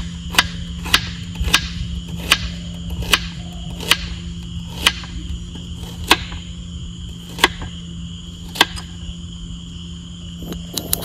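Sharp knocks at uneven intervals, about one or two a second, over a steady high drone of crickets.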